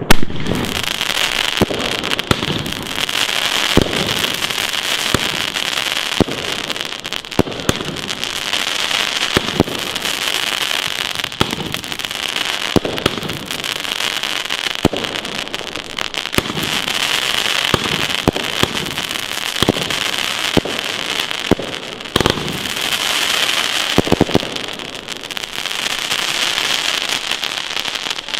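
Funke 'Blinkcracker Weiden' firework battery firing its shots: a sharp bang at the start, then a launch crack every second or two. Over them runs a dense, continuous crackle from the falling crackling-willow stars.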